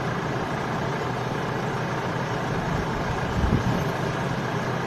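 Vehicle engines idling steadily in a stopped queue of traffic, with a brief low rumble about three and a half seconds in.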